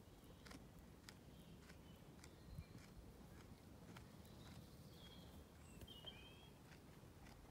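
Near silence with faint, evenly spaced clicks a little more than one a second: a Zwartbles ewe chewing her cud. A few faint bird chirps come near the end.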